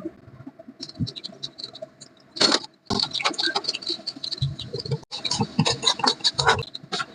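Rapid clinking and clattering of kitchen utensils against cookware, sparse at first and then dense and busy from about two and a half seconds in.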